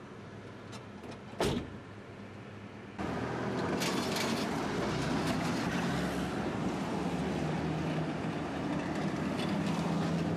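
City street traffic: cars running past, with a sharp click about a second and a half in. The traffic noise gets louder about three seconds in, and a steady low engine hum runs under it later on.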